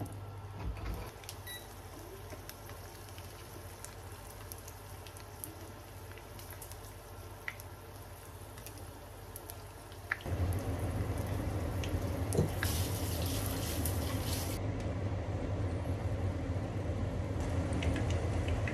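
Garlic cloves in their skins frying gently in olive oil: a soft sizzle with scattered small pops over a steady low hum. About ten seconds in the sound steps up louder and fuller, with a brief higher hiss a few seconds later.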